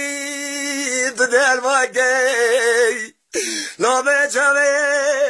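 A man singing unaccompanied: a long, wavering, ornamented line of held notes. He breaks off for a moment about three seconds in, then goes on.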